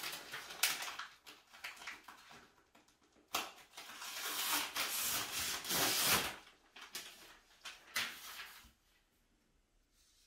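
Paper sewing pattern rustling and crinkling as it is lifted off and handled, in several bursts with a few sharp clicks. The longest stretch of rustling comes about three to six seconds in.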